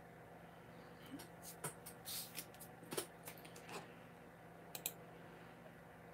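Scattered light clicks and taps from hands working below the counter, some in quick pairs, with a brief rustle about two seconds in, over a faint steady hum.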